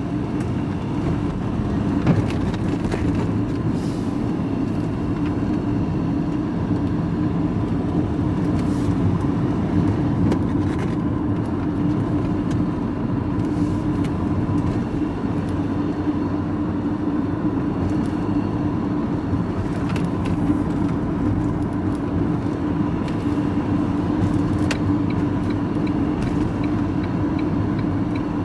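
Vehicle engine and road noise heard from inside the cab while driving at a steady pace, a continuous drone, with a few brief knocks.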